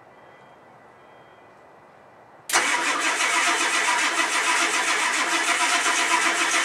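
About two and a half seconds in, the Ford F-250's diesel is suddenly cranked over by its starter on a cold start attempt, a loud steady cranking with an even rhythmic pulse.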